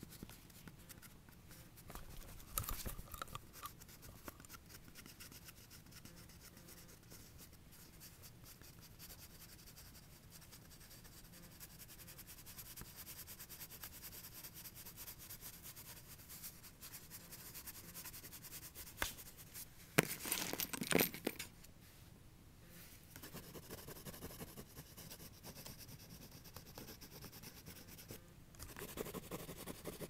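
A pastel stick scratching and rubbing on paper as it draws strokes; faint, with a few louder stretches of scratching and a couple of sharp clicks about two-thirds through.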